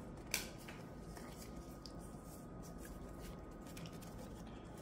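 Faint handling of Pokémon booster packs and cards: one sharp tick about a third of a second in, then a few light ticks and rustles over low room noise.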